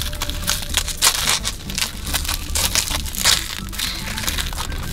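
Metal spoons breaking up wafer ice-cream cones buried in soft-serve, giving irregular crunches and crackles.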